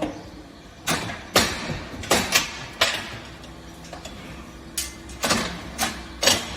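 A series of sharp knocks and clanks at irregular intervals, about a dozen, some in quick pairs.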